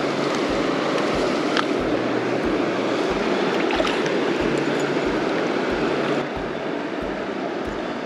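Shallow river current rushing and splashing around the wader, a steady loud rush that drops a little about six seconds in.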